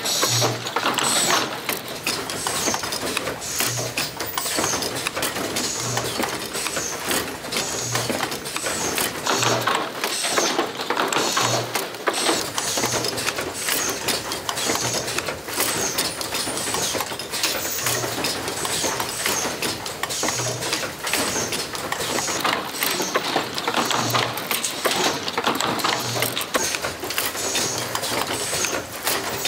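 Automated oil filter production machinery running, a dense steady clatter of rapid mechanical clicks. A short low thump repeats roughly every two seconds.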